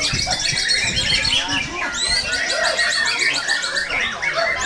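Many caged songbirds singing at once at a bird-song contest: a dense, overlapping chorus of rapid chirps, trills and whistles, with a quick run of repeated high notes near the start and another about halfway through.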